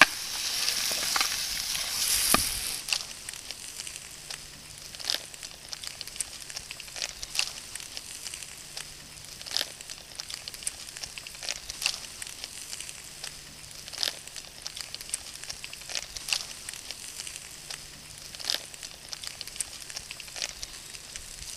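Food sizzling over a campfire for the first couple of seconds, then the fire crackling, with sharp pops every second or two.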